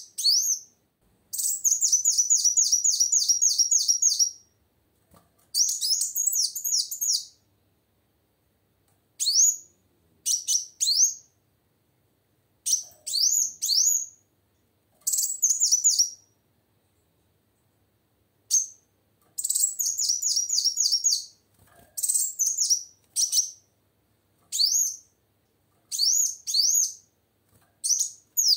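Female kolibri wulung, a sunbird, calling: runs of quick, high, upward-sweeping chirps, about ten a second, each run lasting one to three seconds, repeated again and again with short silent pauses between them.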